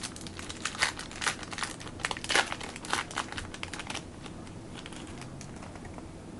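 1995 Skybox Premium football trading cards being handled and flipped through: a quick run of crinkly clicks and rustles that dies down about four seconds in.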